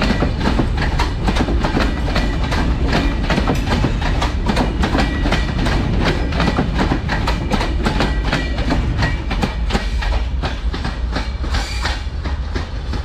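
Passenger coaches of an intercity train rolling past close by, their wheels clattering over the rail joints in a rapid, steady run of clicks over a low rumble. The clatter eases a little near the end as the last coach moves away.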